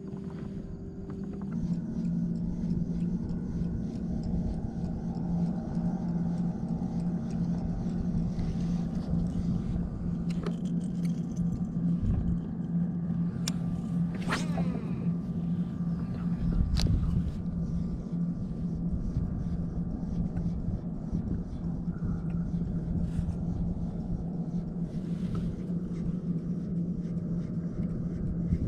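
A motor running at a steady speed, a low even hum that grows louder about a second and a half in, with a few knocks along the way.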